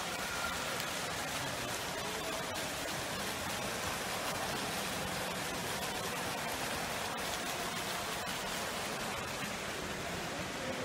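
Fountain jet splashing steadily into its pool, a continuous even rushing hiss.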